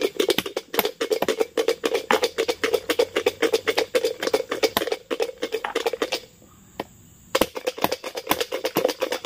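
Freshwater snail shells clattering rapidly against one another as they are handled during cleaning, with a brief pause about six seconds in.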